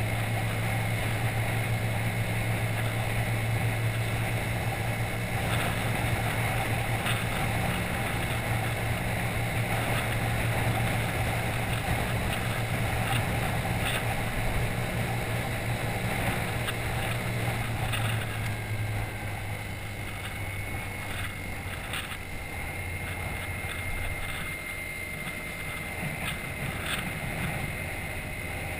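Scooter engine running steadily while riding, with wind rushing over the microphone; the engine's low hum eases off about two-thirds of the way through.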